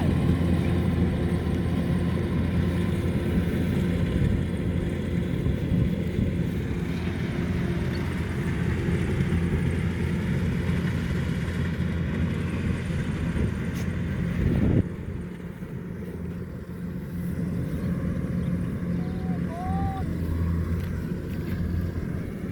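Rice combine harvester's engine running steadily with a constant hum. Its level drops suddenly about fifteen seconds in, and a few short high chirps come near the end.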